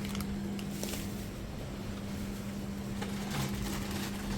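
A steady low hum, one constant tone with rumble beneath it, and a few faint clicks.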